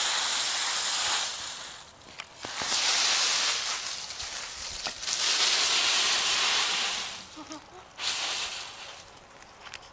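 Dry autumn leaves crunching and rustling as a small dog leaps into and digs through a leaf pile, in four loud bursts with quieter gaps between.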